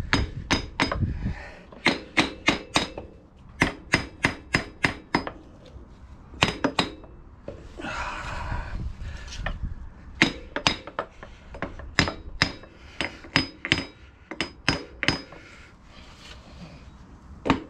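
Repeated hammer taps on the Moto Guzzi V7's shaft-drive bevel box, working it loose from the swingarm: sharp strikes with a metallic ring, in bursts of two or three a second. A short scraping rub comes in about eight seconds in, and the strikes turn lighter near the end.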